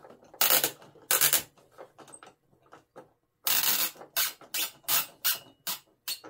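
A hand screwdriver driving a screw into a plastic wing-strut mount, a short rasping scrape with each twist of the wrist: two strokes, a pause, then a quicker run of about two and a half strokes a second.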